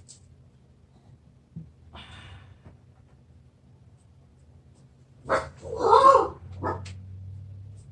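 A dog barking, a short burst of barks about five to seven seconds in, the middle one the loudest.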